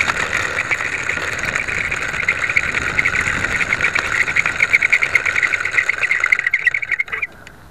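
Electric motor and propeller of a small RC plane running while it taxis on dirt: a steady whine with a rapid flutter that cuts off suddenly about seven seconds in.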